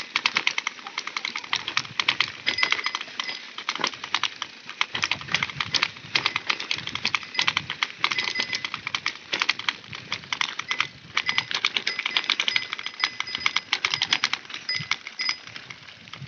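Mountain bike riding down a rough, stony gravel road: dense, rapid, uneven clicking and rattling from the bike jolting over the stones.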